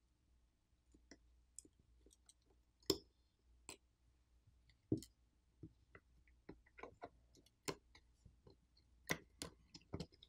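Faint, irregular small clicks and taps as a smartphone is taken apart by hand. A tool and fingers work at metal brackets and small parts in the phone's plastic frame. A few clicks stand out, two in the first half and a cluster near the end.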